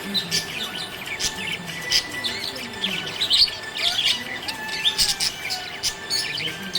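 Small pet parrots chirping and twittering continuously, with many quick high chirps following close on one another.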